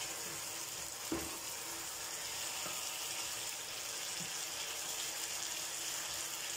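Chicken pieces frying in oil in a pan, a steady sizzle, with a wooden spoon stirring them and a light knock against the pan about a second in.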